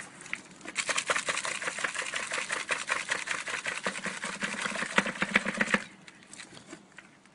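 Dense, rapid rattling of small debris hitting plastic, as if sucked through a homemade vacuum cyclone separator built from sewer-pipe fittings. It starts about a second in and cuts off suddenly near the end, leaving a few scattered clicks.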